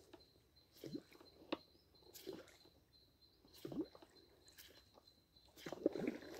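Yara Shotgun 90 topwater popper being jerked across the river surface, making short faint bloops about once a second, each dropping in pitch, with louder splashing near the end.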